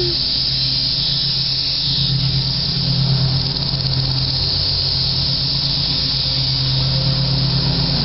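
Dense chorus of periodical cicadas, a loud, steady, unbroken high hiss.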